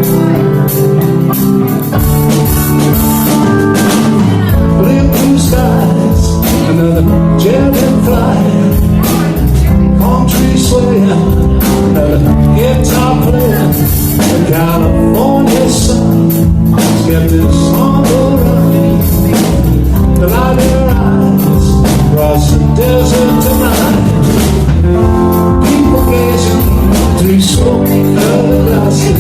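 Live blues band playing: electric guitar lines over bass and a drum kit with steady cymbal and drum hits.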